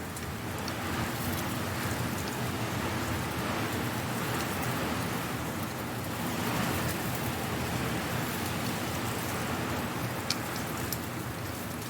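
Strong wind blowing dry leaves: a steady rustling hiss with scattered crackles, and a couple of sharp ticks about ten seconds in.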